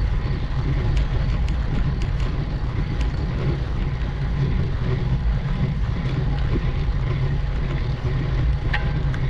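Steady low rumble of wind and road noise on the microphone of a road bike climbing, with a few faint ticks scattered through it.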